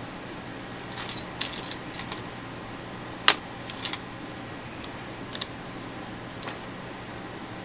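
Small plastic model-kit parts clicking and clattering as they are picked up, handled and set down on the table: a run of sharp clicks, the loudest about three seconds in.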